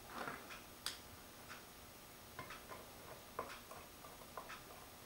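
Faint, irregular light clicks and taps of small metal parts as a 1955 Buick fuel pump's top cover is pressed down and its screws are started by hand.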